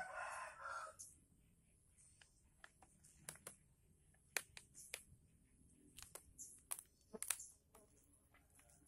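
Near silence, broken by scattered faint clicks and crackles as fingers pick through the brittle resin-and-wax nest of a stingless bee colony inside a split bamboo.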